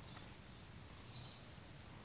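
Faint, steady outdoor background hiss, with a brief faint high-pitched sound a little over a second in.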